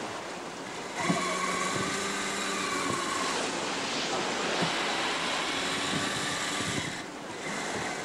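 Wind buffeting the microphone and water rushing past the hull of a Lavranos Charger sailing yacht running downwind in swells. The noise steps up about a second in, and a wavering whistle-like tone sits over it for a couple of seconds.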